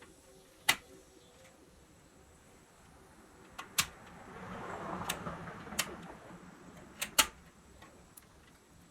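Hand-work handling sounds: several sharp clicks and knocks, with a rustling or rubbing noise that swells and fades in the middle.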